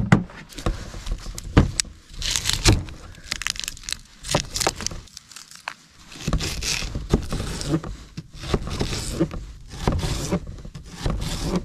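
A kitchen knife slicing a raw onion on a plastic cutting board: a run of irregular knocks and crisp crunches as the blade cuts through and meets the board. There is a sharper thump near the start.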